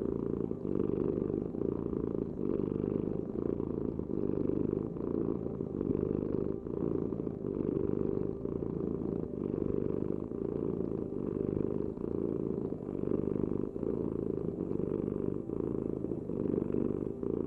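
Domestic cat purring close up. It is a steady low rumble that swells and eases in a regular rhythm with its breathing.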